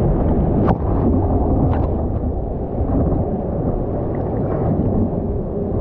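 A low, steady rush of surf water and wind buffeting a surfboard-mounted GoPro's microphone, with one sharp knock less than a second in.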